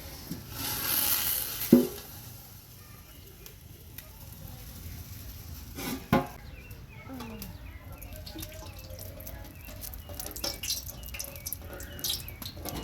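Cooking oil poured from its container into a cooking pot: a pouring rush for about a second and a half, then a sharp knock. Another knock comes about six seconds in.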